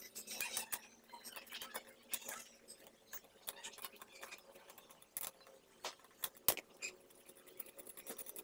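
Irregular small metallic clicks and clinks as chrome capped lug nuts and a socket driver are handled and turned on the steel studs of a wheel hub.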